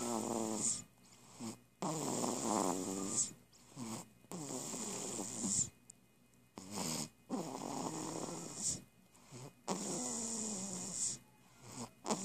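Snoring in slow, regular breaths, about one every two and a half seconds, each a buzzing snore with a breathy hiss.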